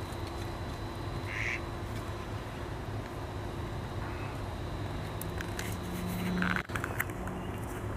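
A beaver feeding on its dam, with a few crisp snaps and crunches between about five and seven seconds in. A short low animal call comes just before and under them, over a steady low background hum.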